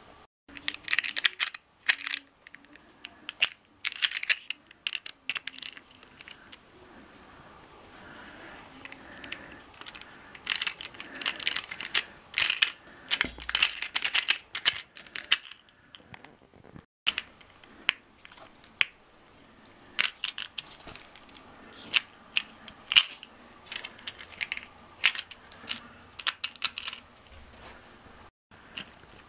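Handling noise: an irregular run of sharp clicks and light metallic clinks, some in quick clusters, from small metal pipe fittings and the camera being handled, with rustling in between.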